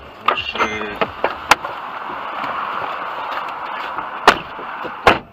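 Car door knocks and thuds, the two loudest near the end, over a steady rushing noise.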